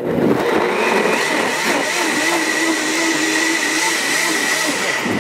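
Countertop blender running steadily at high speed, blending a jar of tomatoes, jalapeños, onion and cilantro into salsa. A steady motor whine runs through it.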